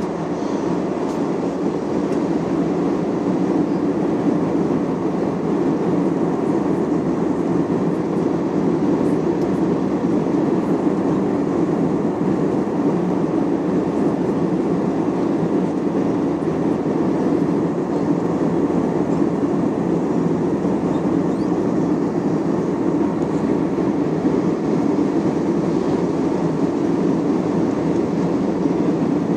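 Steady cabin noise of a jet airliner in cruise: engine and airflow noise heard through the fuselage as a constant low rumble.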